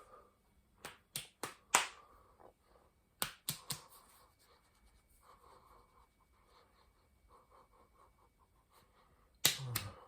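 A person breathing heavily, broken by sharp clicks or smacks that come in quick groups of three or four, with a louder cluster of them near the end.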